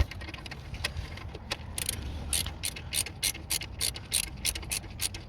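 Ratchet wrench clicking as it backs out a loosened engine bolt: a few clicks at first, then a fast run of about five clicks a second from about two seconds in.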